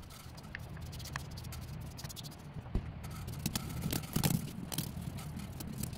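Knife chopping and shaving a peeled green papaya into thin strips: scattered light taps and crunches as the blade hits the firm flesh, coming thicker in the second half, with shreds dropping into a plastic bowl.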